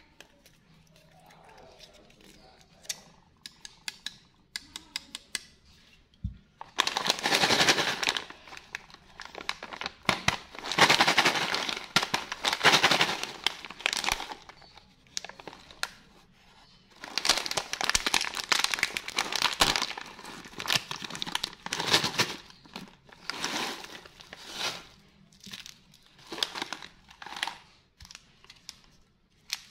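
Plastic snack bag of chocolate popcorn crinkling loudly in long bursts as it is handled and torn open, after a few quieter seconds of small handling clicks.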